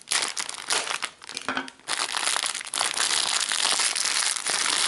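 Clear plastic bag crinkling as it is snipped with scissors and pulled open by hand: scattered crackles at first, then a dense, continuous crinkling from about two seconds in.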